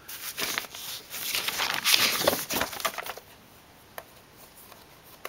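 Vinyl LP and its paper and card sleeve being handled: rough rustling and sliding for about three seconds, then two light clicks.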